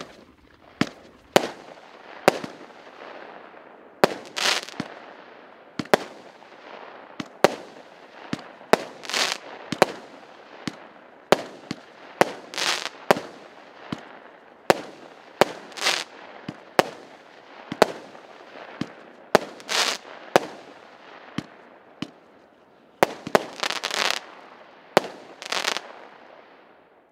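A 19-shot, 0.8-inch consumer firework cake firing through its shots. Sharp reports come every half-second to second and a half, some in quick pairs or clusters, with a steady hiss between them.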